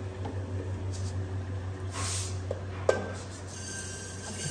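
Roasted moong dal being tipped from a metal kadai into a steel pressure cooker: a soft rustle of grains and a single metal clink just before three seconds in, over a low steady hum.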